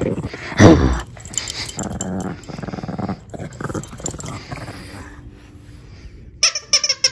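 Two small dogs play-fighting and growling at each other, with one loud growl about half a second in. Near the end come a few short, high-pitched squeaks.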